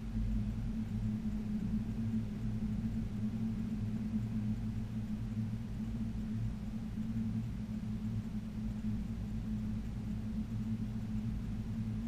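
Steady low hum with a deep rumble underneath, unchanging and without distinct events.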